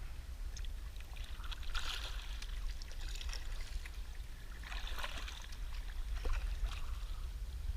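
Sea kayak paddle blades dipping into calm sea water, with splashes and drips. The strongest strokes come about two seconds and five seconds in, over a steady low rumble.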